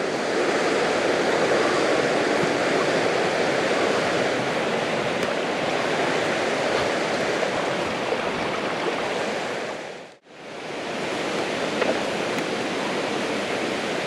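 Mountain stream rushing steadily, running high with plenty of water. About ten seconds in the sound drops out for a moment, then the rushing returns slightly quieter.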